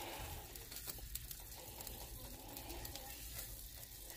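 Faint sizzling and crackling from a pot of hot water on an electric stove burner, used as a water bath to melt candle wax in a glass measuring cup; a steady faint hiss with scattered small pops.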